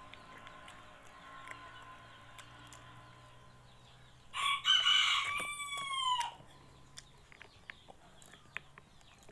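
A rooster crowing once, a call of about two seconds starting about halfway in and ending on a falling pitch.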